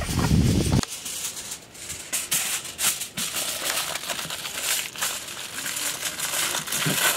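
Aluminium foil being handled and crinkled by hand, a dense run of dry, irregular crackling and rustling, after a low rumble in the first second.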